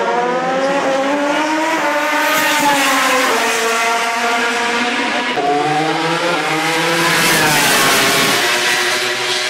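Racing motorcycle engines at high revs as the bikes accelerate, the pitch climbing and dropping back several times with the upshifts.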